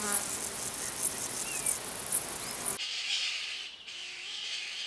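Insects buzzing with sharp, very high chirps repeating about every half second. About three seconds in, this cuts to pine martens calling high in a conifer during mating: a quieter, raspy chatter.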